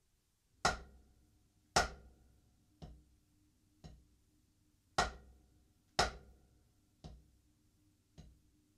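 Drumsticks striking a drum practice pad at about one stroke a second: two loud strokes followed by two soft ones, played twice through. This is the full-stroke, down-stroke, tap, up-stroke exercise.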